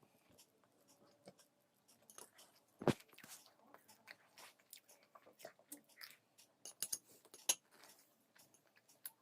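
Close-up sounds of a person eating poha (flattened rice): chewing, with many short mouth clicks and ticks. A sharp knock about three seconds in is the loudest sound, and a few more sharp clicks come around seven seconds in.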